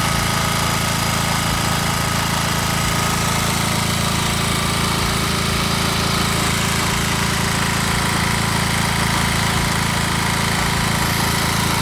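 Champion 4000-watt open-frame inverter generator's engine running steadily, with an even, unchanging note.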